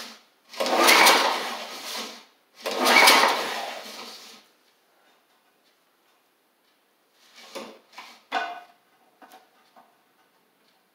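Two pulls on the recoil starter of a Snapper Hi Vac mower's four-stroke Tecumseh engine, each about one and a half to two seconds of cranking that tries to fire but doesn't catch. A few fainter short clatters follow a few seconds later.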